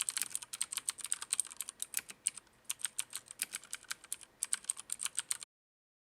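Typing on a Filco Majestouch Ninja mechanical keyboard with Cherry MX switches: a fast run of sharp key clicks with brief pauses, stopping abruptly near the end.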